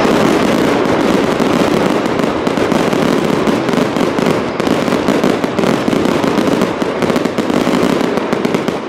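Fireworks display going off in a dense, continuous barrage of bangs, popping and rapid crackling from the bursting stars. It eases off right at the end.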